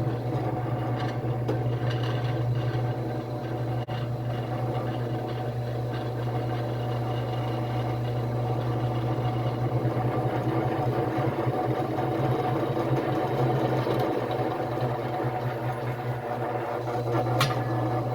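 Drill press motor running steadily with a bit drilling into a steel plate.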